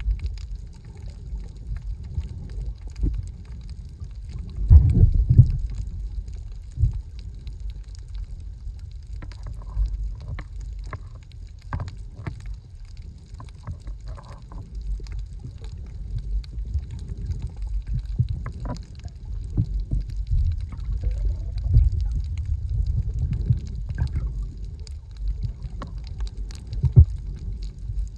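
Muffled underwater sound picked up by a camera beneath the surface: a low rumbling wash of moving water with scattered clicks and gurgles, surging louder about five seconds in and again near the end.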